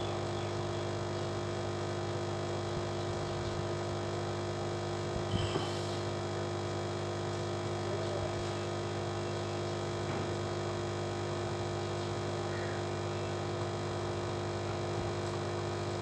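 Steady electrical hum made of several held tones, with one brief faint tap about five seconds in.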